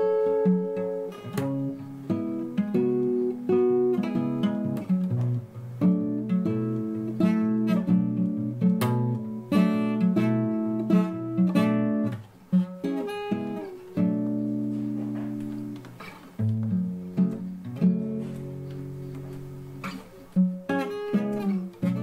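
Solo acoustic guitar fingerpicked, a run of single notes and chords with the strings left to ring. In the second half the playing thins out to a few longer ringing chords.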